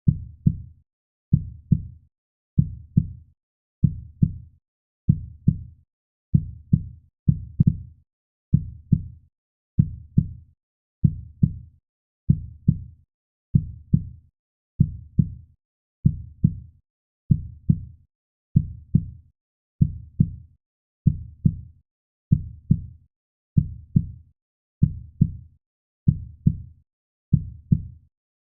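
Heartbeat sound: a steady lub-dub of paired low thumps, repeating about every second and a half.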